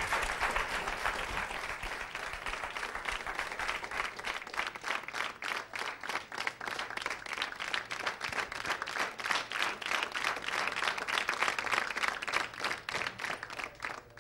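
Studio audience applauding: many hands clapping steadily, cutting off suddenly at the end.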